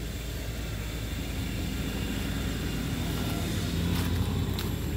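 Low rumble of a passing vehicle's engine, building steadily and loudest about four seconds in.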